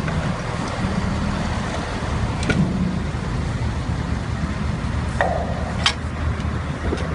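Steady low engine rumble of running lifting machinery with wind noise, and sharp metal clicks about two and a half seconds and six seconds in as the automatic shackle hook is lowered onto and seats on the load's lifting lug.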